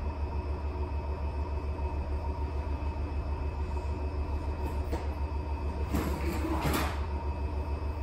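Electrolux W75MP commercial front-loading washing machine spinning at high speed in its extended final extraction: a steady low drone with a fast, even pulse and a faint high steady tone. A brief louder noise, lasting about a second, comes about six seconds in.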